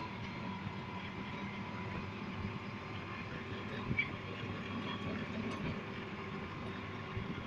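Vintage-style amusement ride car driving slowly along its guide-rail track, heard from the seat: a steady low engine drone with rumble from the running gear, and a small clack about four seconds in.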